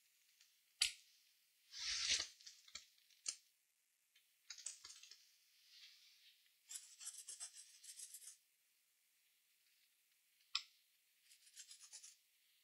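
Faint scratchy scrubbing in short bursts as a laptop BGA chip is cleaned with liquid, with a quick run of rapid strokes in the middle and a few sharp clicks of tools against the board.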